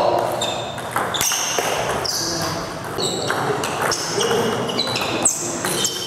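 Table tennis ball clicking off rackets and the table, a string of sharp hits every half second or so, each with a brief high ring.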